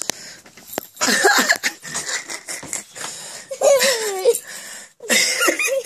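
People laughing in several breathy, giggling bouts, with rising and falling squeals of laughter.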